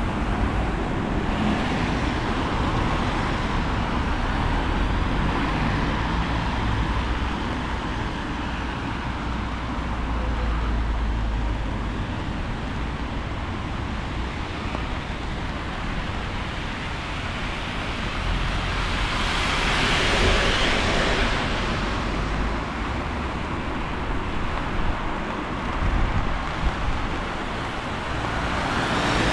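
Wet-weather street ambience: wind rumbling on the microphone over a steady hiss of road traffic. About twenty seconds in, a vehicle passes, its tyre hiss swelling and fading.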